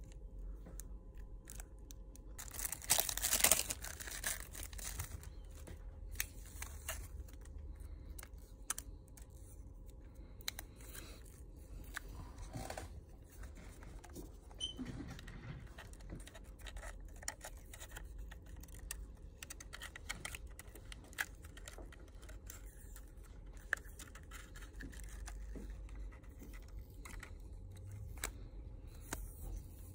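Plastic film being peeled from a replacement HTC U12 Life screen: a short ripping sound about three seconds in. Then faint scattered clicks and rubbing as the screen is handled and pressed into the phone's frame.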